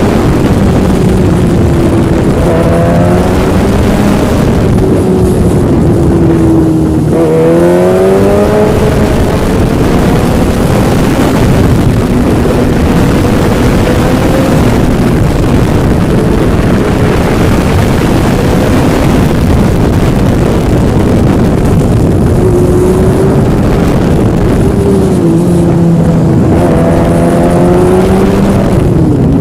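Yamaha engine running under way, its pitch rising and falling as the revs change, with a dip and quick rise twice, over a steady rushing noise.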